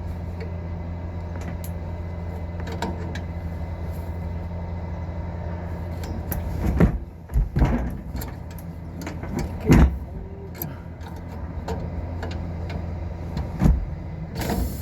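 Steady machinery hum, with several knocks and clunks in the second half, one a little before the tenth second the loudest.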